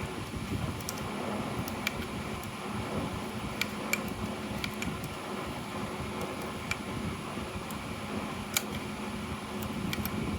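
Steady fan-like mechanical hum with a light low drone, and scattered sharp, light clicks, the strongest about eight and a half seconds in.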